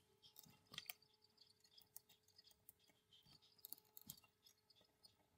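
Near silence with a few faint clicks and taps of an ECC83 valve being pushed back into its socket on a tube radio chassis, plus a faint steady hum.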